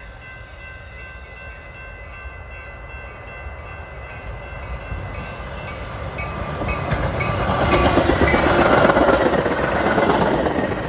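Metra commuter train approaching and passing through a grade crossing. Crossing-signal bells ring in an even beat at first, then the rumble and wheel clatter of the bilevel passenger cars grow louder until they are loudest as the cars go by.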